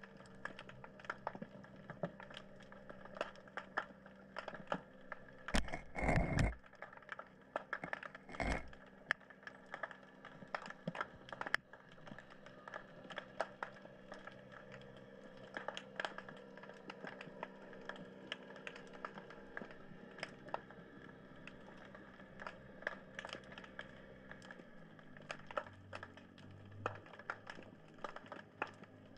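Underwater crackling: a dense, irregular patter of sharp clicks, typical of snapping shrimp, over a steady mechanical hum that drops in pitch near the end. Two louder dull knocks come about six and eight and a half seconds in.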